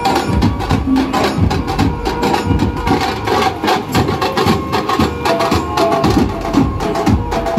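Banjo dhumal street band playing a Hindi film song: large bass drums keep up a fast, steady beat with sharp percussion hits, under a melody of held notes from the band's electric banjo.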